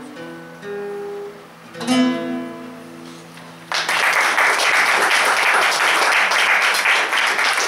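Nylon-string classical guitar playing the last notes of a piece, ending on a ringing chord. About halfway through, audience applause breaks out suddenly and is louder than the guitar.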